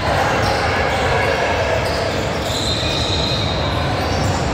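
Basketball bouncing on a gym's hardwood court amid the steady din of a game in a large hall, with a brief high-pitched squeak about two and a half seconds in.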